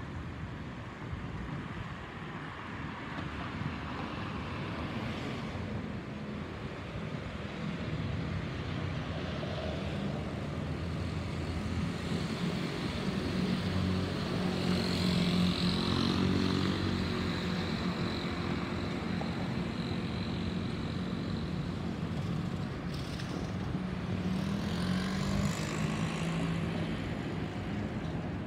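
Jet engine noise from an Airbus A320-214 with CFM56 turbofans, climbing out overhead: a steady rumble that swells to its loudest about halfway through, when a high fan whine comes in, then eases slightly as the aircraft moves away.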